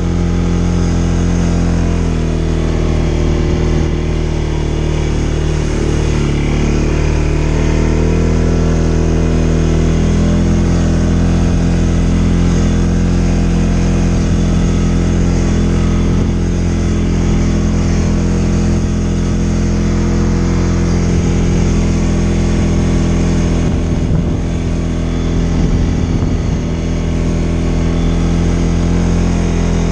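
CFMoto ATV engine running steadily while the quad is ridden along a dirt trail, its pitch rising and dipping slightly a few times with the throttle.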